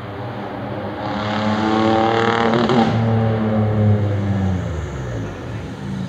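Hillclimb race car's engine pulling hard, its pitch rising for about two seconds, then falling away smoothly for the next two as the revs drop.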